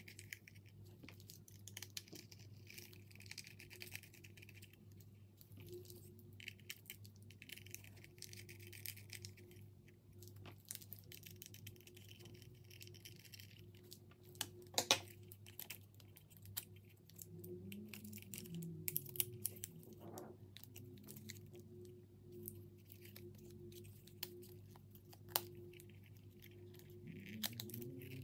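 Quiet small clicks, scrapes and rustles of a precision screwdriver backing out the side screws of a 2.5-inch WD laptop hard drive and the drive being worked out of its metal mounting bracket, with a few sharper clicks. A faint steady hum runs underneath.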